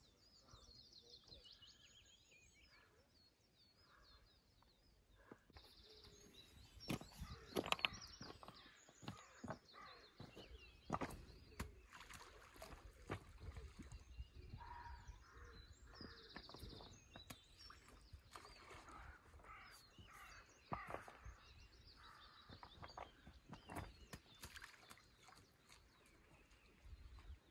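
Faint small-bird chirping over quiet open air, with scattered sharp clicks and knocks of stones on a pebbly shore as stones are picked up and skimmed across the water.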